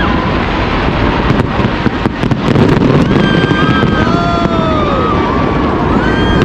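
Aerial fireworks display going off in a dense, continuous barrage: a heavy rumble of bursts with sharp cracks, and high tones that rise and fall over the top.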